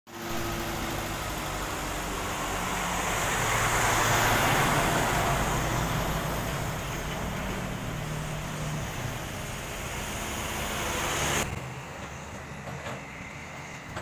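Road traffic passing close by: cars and trucks driving past with tyre noise and engine hum, loudest about four seconds in. About eleven seconds in the sound drops suddenly to quieter, more distant traffic.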